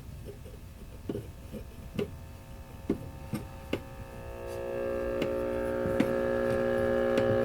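1954 GE C407 tube radio's speaker giving a few scattered clicks, then a steady hum swelling in about four seconds in and growing louder: power-supply hum from bad electrolytic filter capacitors.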